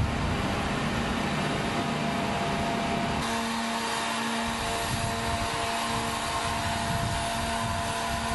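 Heavy military vehicle's engine or power unit running steadily: an even mechanical hum with a few held tones, the sound shifting slightly about three seconds in.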